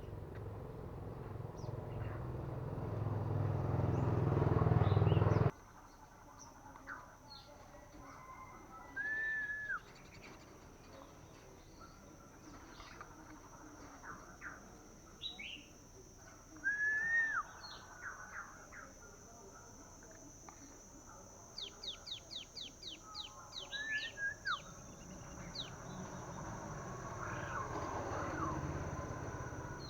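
Young common iora giving short arched whistled calls a few times, with a quick run of about ten ticking notes a little past the middle. A low rumbling noise swells at the start and cuts off suddenly about five seconds in.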